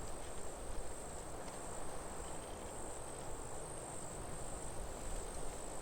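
Crickets trilling in one steady high-pitched chorus, over a low, even background rumble.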